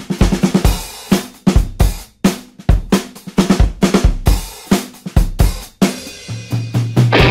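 Background music: a drum kit playing a beat alone, with kick drum, snare and cymbals. Near the end a low bass note comes in under the drums.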